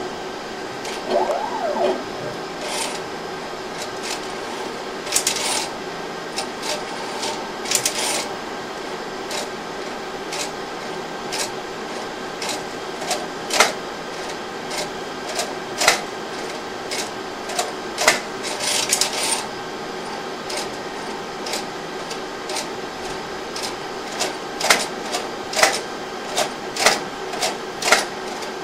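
Plasmon D Series optical disc library's robotic handler running an offset calibration test: a steady machine hum with frequent sharp clicks and a few short whirring bursts as the mechanism moves.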